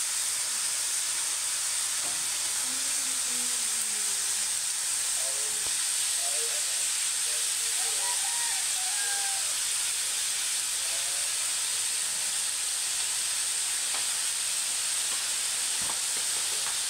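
Chopped unripe jackfruit sautéing in an aluminium wok with a steady sizzling hiss.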